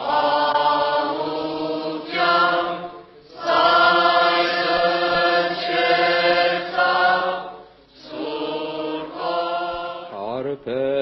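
Choir singing Armenian sacred chant in unison, in long held phrases broken by short pauses for breath. Near the end a single voice with a wide vibrato takes over.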